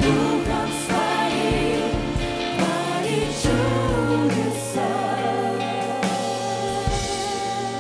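Live worship music: a group of singers with microphones singing together over a band, with a long held note in the second half.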